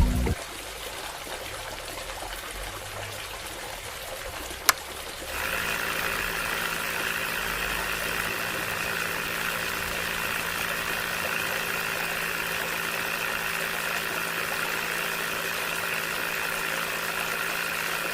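A small electric motor starts just after a click about five seconds in and then runs steadily with a constant whine.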